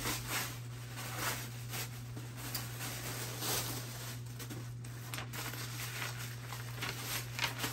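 White packaging wrap rustling and crinkling in irregular bursts as it is pulled and folded off a new tote bag.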